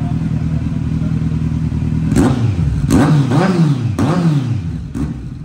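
Kawasaki Z900's inline-four, decatted and fitted with an SC-Project slip-on exhaust, idling steadily and then revved in several quick throttle blips from about two seconds in, each rising and falling in pitch.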